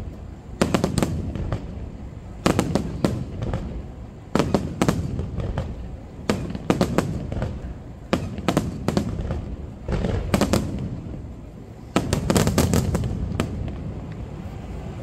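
Aerial fireworks display: clusters of sharp shell bursts and bangs about every two seconds, with a low rumble between them. The densest cluster comes about twelve seconds in, followed by a lower, steadier crackle.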